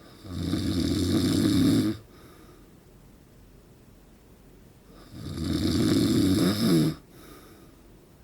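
A man in his forties snoring in his sleep: two loud snores about five seconds apart, each lasting nearly two seconds, each followed by a faint short breath.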